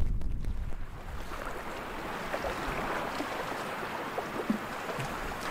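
Wind gusting on the microphone for about the first second, then a steady rush of small wind-driven waves lapping on the lakeshore, with a few faint ticks.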